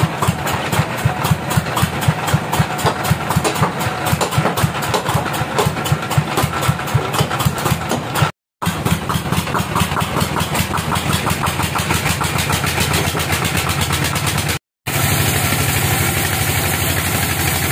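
Log band saw mill running, with a fast, even pulsing from its drive, as the blade cuts through a large teak log. The sound drops out twice for a split second.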